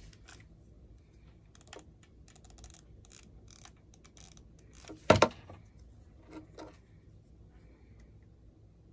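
Light clicks and taps of cut popsicle sticks being picked up and laid on a wooden tabletop, with one louder knock about five seconds in.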